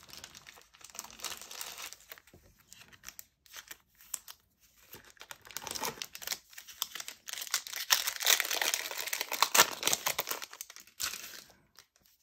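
Foil trading-card pack wrapper tearing and crinkling as it is opened by hand, the crinkling loudest about two-thirds of the way through.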